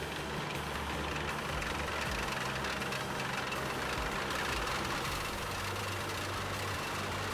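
GT-MU (GAZ-73) small tracked amphibious carrier driving out of a shallow stream onto mud, its engine running steadily under the noise of the tracks.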